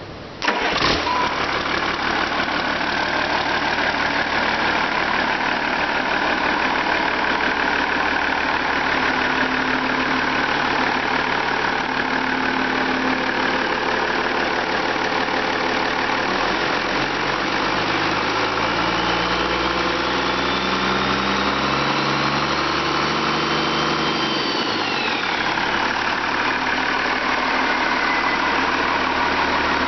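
1992 Cummins 8.3L inline-six mechanical-injection turbo diesel fires up about half a second in and runs at a steady idle. Later it is revved by hand at the injection pump, the revs and a high turbocharger whistle climbing, then dropping sharply back to idle about 25 seconds in.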